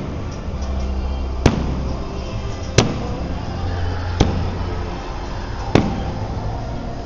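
Fireworks going off, four sharp bangs about a second and a half apart, over music playing underneath.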